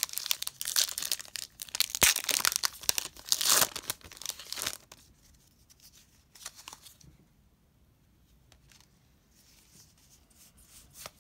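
Pokémon booster pack wrapper being torn open and crinkled, a loud crackling tear for about the first five seconds. After that come only faint rustles as the cards are slid out of the pack.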